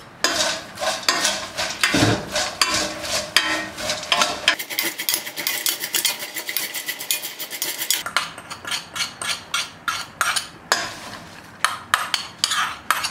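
Popcorn being stirred and tossed in a stainless steel pot with metal utensils: quick, repeated scrapes and clinks against the pot, several a second. The popcorn is being coated in melted butter, pepper and salt.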